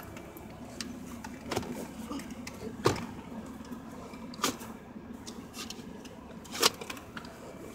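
Scattered clicks and knocks from the rear seatbelt and fold-down centre armrest of a Mercedes C280 being handled, over a faint steady low hum. The loudest knocks come about three, four and a half and nearly seven seconds in.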